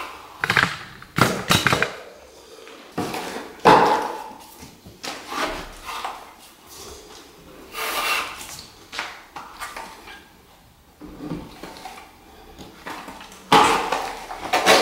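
Hardwood flooring boards being handled and fitted: irregular wooden knocks and scrapes, with a louder run of knocks near the end.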